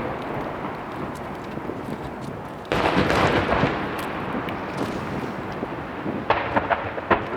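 Aerial firework shells bursting in a rapid barrage, with overlapping booms rolling and echoing. A sudden louder burst comes about three seconds in, and sharp crackling pops near the end.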